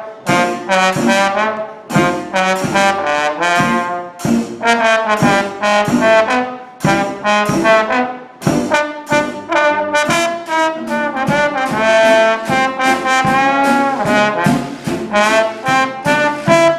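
Trombone taking a solo in a traditional New Orleans jazz band, playing sustained, sliding melody lines over the band's steady rhythm-section beat.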